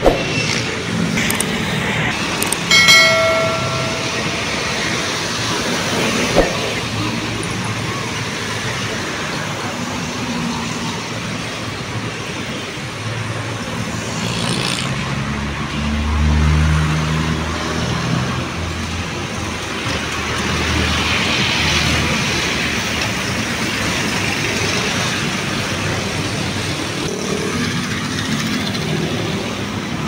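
City street traffic: a steady rush of cars and motorcycles passing on the boulevard, with a brief tone about three seconds in and a louder, lower rumble of a vehicle passing close at around sixteen seconds.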